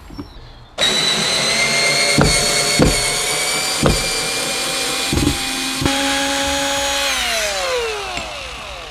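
Workzone 18V cordless drill driving a screw into a thick wood block, its motor whining at one steady speed with a few sharp clicks along the way. The pitch falls as it runs down near the end. It runs with no speed control from the trigger because of a faulty trigger switch, which needs replacing.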